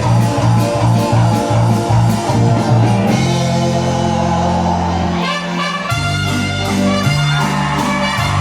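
Live cumbia band playing an instrumental passage, with horns over bass and a steady beat. The bass drops out briefly about five seconds in.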